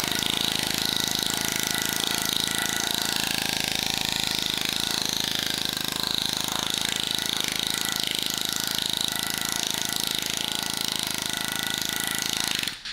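A shop power tool runs steadily with a loud high-pitched whir, then cuts off abruptly near the end.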